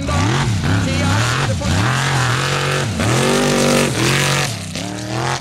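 Formula Offroad buggy's engine revving hard at full throttle. The revs climb and drop sharply several times as the driver blips and feathers the throttle while sliding through loose sand.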